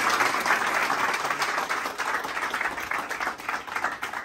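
A roomful of people applauding, the clapping slowly thinning and fading.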